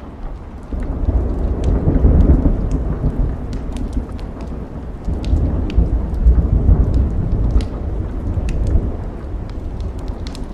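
Rolling thunder that rises about a second in and swells twice, over steady rain, with the sharp pops of a crackling wood fire.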